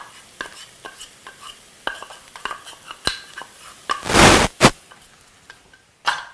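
Ground spices being tapped out of a small grinder cup into a stainless steel sauté pan of frying onion and garlic: light metallic clinks and taps, a louder rushing burst about four seconds in followed by a sharp knock, and another short burst near the end.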